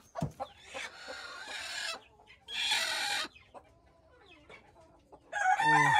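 Desi hens clucking and squawking in two short noisy bouts, then quieter calls, with a louder pitched call near the end.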